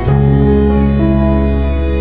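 Slow ambient background music with sustained chords.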